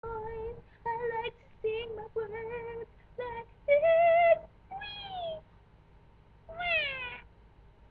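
A woman's voice singing a short tune without words: several short notes held on one pitch, a louder higher note about four seconds in, then two notes that slide down in pitch.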